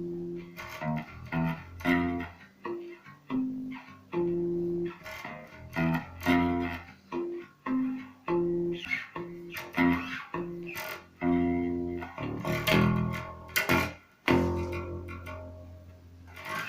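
Precision Bass electric bass guitar being played: a run of plucked bass notes, some with sharp percussive string clicks.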